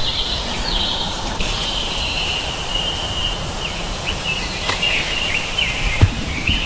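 Outdoor nature ambience: continuous high chirping, like birdsong, over a low background rumble, with a couple of faint knocks near the end.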